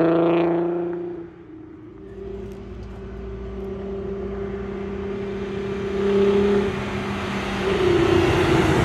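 Engine of a Volkswagen Golf GTI swapped to a 3.6-litre VR6: an engine note falls and fades in the first second, then a steady engine note grows louder as the car approaches, rising in pitch near the end as it comes close.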